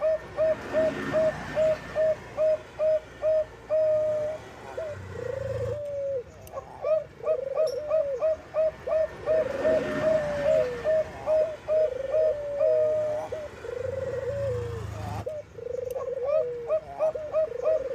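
Bangkok-bred zebra doves (perkutut bangkok) cooing: a quick, even string of short notes, about three a second, then longer coos that bend and fall in pitch, with quick notes still running between them.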